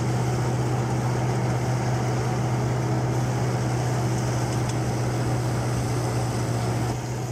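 Peanut thresher running steadily under load as dried peanut plants are fed into it: a constant mechanical drone with a strong, even low hum that does not change.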